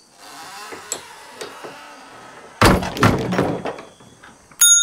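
A wooden lattice door shuts with a heavy thunk about two and a half seconds in, after faint shuffling and small knocks. Near the end a small brass hand bell is struck once and rings on with a clear, lingering tone.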